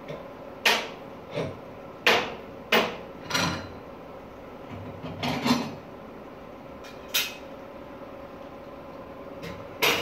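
Sharp knocks and clanks of hand tools or parts being set down and handled on a workshop worktable, about eight at irregular intervals, over a steady machine hum.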